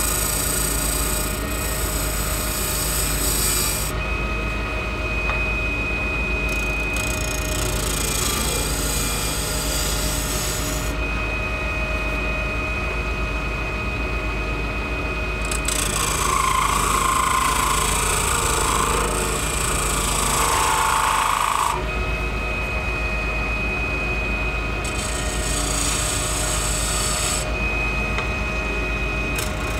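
Small wood lathe running steadily while a hand-held tool scrapes the spinning acrylic duck-call blank, cutting in four stretches of a few seconds each. The third stretch, about sixteen seconds in, is the loudest and carries a higher screech from the tool on the plastic.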